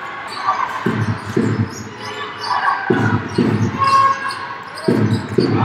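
A basketball bouncing on a wooden sports-hall court, six bounces in three pairs about two seconds apart, with short squeaks and voices around the court.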